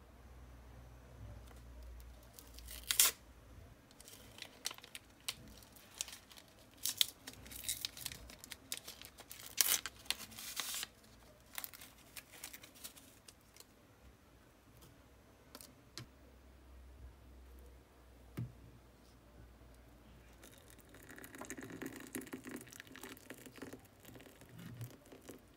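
A paper tea-bag sachet being torn open and handled, with scattered crinkles and small clicks. Near the end, hot water is poured from a kettle into a ceramic cup onto the tea bag.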